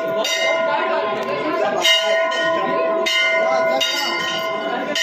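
A hanging temple bell rung by hand, struck about four times at intervals of roughly a second. Each strike rings on into the next, over a murmur of worshippers' voices.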